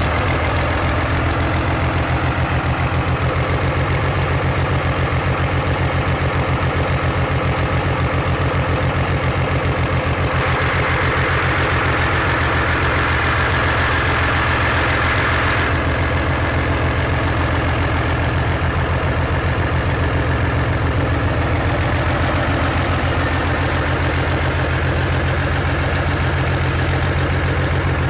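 A 59-litre V12 tank engine running steadily at idle on a test stand, its open exhaust ports giving a loud, rapid, unmuffled firing pulse. A hiss rises over it for about five seconds in the middle.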